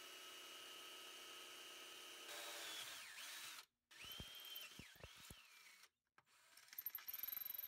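Electric drill boring through the aluminum housing of a Ford PTU (power transfer unit), heard faintly. The motor's whine holds steady, then shifts and sags in pitch as the bit bites, in short stretches broken by two abrupt cuts.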